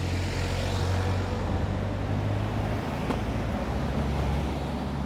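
An engine running with a steady low hum over a rushing noise, its pitch shifting slightly about three seconds in.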